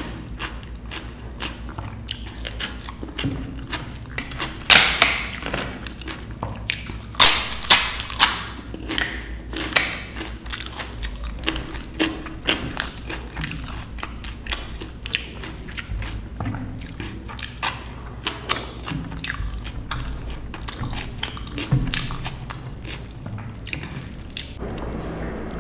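Close-miked eating of dal and rice: continual wet mouth clicks and chewing. A few much louder, sharp crackly sounds stand out about five seconds in and again around seven to ten seconds in.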